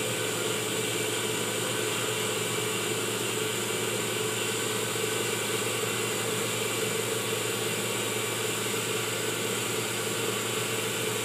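Electric cream separator running at a steady speed, a constant machine whir with a steady whine, as it spins warmed milk apart into skimmed milk and cream.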